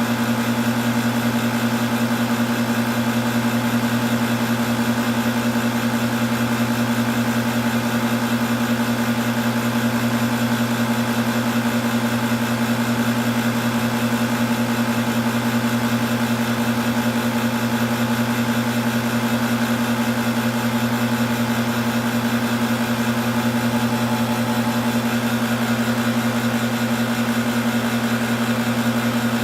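Air-conditioning compressor running with a steady, unchanging hum.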